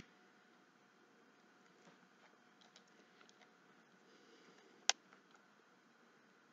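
Small cherub embellishments and a card being handled on a cutting mat: faint light ticks and taps in a quiet room, with one sharp click about five seconds in.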